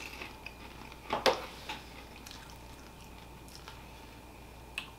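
Popcorn being chewed: quiet crunching with a few sharper crunches, the loudest about a second in.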